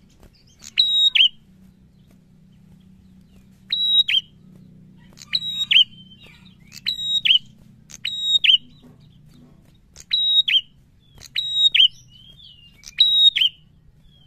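A caged tailorbird (prenjak) singing loud, short, repeated phrases, each a couple of sharp notes followed by a clear whistled note that drops in pitch. After a pause of a couple of seconds the phrases come about every second and a half.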